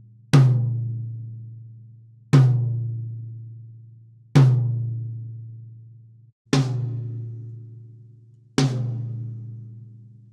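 Tama Star Walnut 12-inch rack tom struck one hit at a time for a sound check, each stroke left to ring out and fade, about two seconds apart, three times. After a brief break about six seconds in, two more single strokes follow with a different ring, as the check moves on to the next tom.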